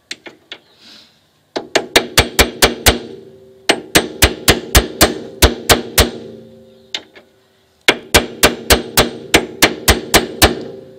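A hammer taps a new rear wheel bearing into the rear hub carrier of a Mercedes R170 SLK, starting it square in its bore. The strikes come in three runs of about four a second, the first starting about a second and a half in. A ringing metal tone carries on between the blows.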